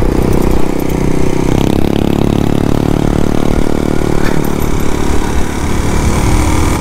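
Motorcycle engine running steadily under way, over a steady wind rumble on the mic. It is making a noise the rider says it should not make even after an engine-oil change, which he fears is an engine problem.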